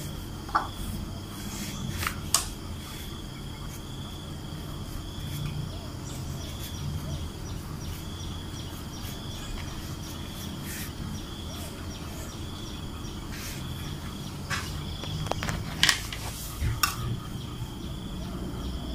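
A cricket trills steadily in repeated high spells in the background, over a low hum. A few sharp clicks and snaps stand out: star fruit being split apart and trimmed with a knife on a plastic cutting board, twice early on and in a cluster near the end.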